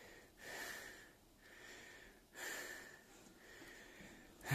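A man breathing hard, three loud breaths about two seconds apart, the last the loudest: out of breath from climbing a caged shaft ladder with a heavy bag.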